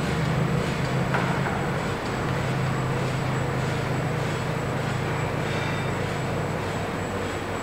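Electric motor driving a chain-and-sprocket mechanism, running steadily with a low hum and a noisy mechanical rattle and scrape as the chains slowly drag a block along a stone beam. A small click about a second in.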